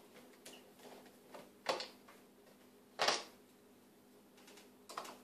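A few short sharp clicks and scrapes of a screwdriver against a plastic thermostat base plate as it is worked off the wall, the loudest about three seconds in.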